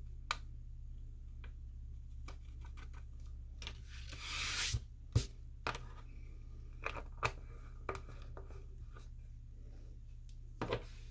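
Paper rustling and crinkling as a folded sheet is handled over a small plastic pot of heat-adhesive powder, with scattered light clicks and taps. A louder rustle comes about four seconds in and a sharp tap just after five seconds, over a steady low hum.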